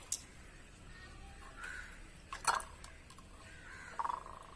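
A spoon clinking faintly against a glass bowl twice, about two and a half seconds in and again near the end, while a CD is lifted out of the water; the second clink leaves a short ringing tone.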